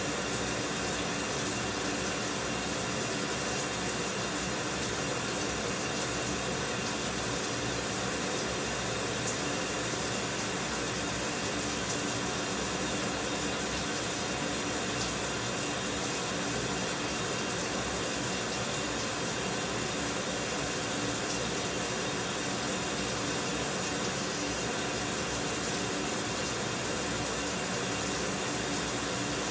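Shower running: a steady spray of water hissing without change.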